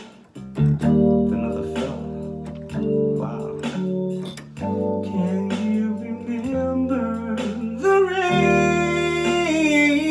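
Backing track of guitar and bass playing held chords, with a man singing along into a handheld microphone. Near the end he holds one long wavering note.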